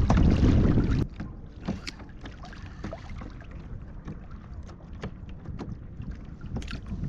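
Wind buffeting the microphone for about the first second, then cutting off abruptly. After that, water lapping and slapping against a plastic kayak hull, with scattered small clicks and ticks as fishing tackle is handled.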